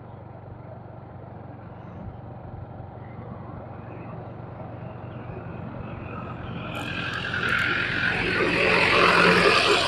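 Motorbike engine running steadily while riding, with a louder vehicle passing close by, building up in the last few seconds.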